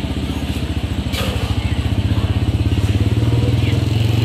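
Motorcycle engine running close by with a rapid, even low pulsing, growing louder over the last couple of seconds.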